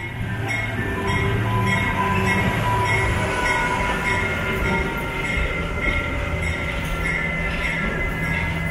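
GE 44-ton center-cab diesel locomotive running alongside on its twin diesel engines, a steady low drone. Over it, a high-pitched squeal comes and goes about twice a second.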